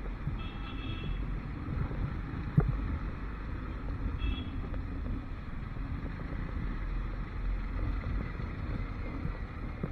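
Motorcycle riding through city traffic: a steady low engine and road rumble with wind on the microphone. A sharp knock about two and a half seconds in, and two short high beeps, once near the start and once just past four seconds.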